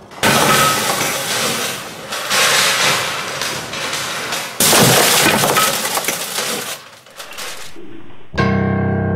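Loud crashing and shattering of brittle debris (broken white shards and wooden slats), in three big bursts over the first seven seconds. About eight seconds in, a sustained electronic keyboard chord begins.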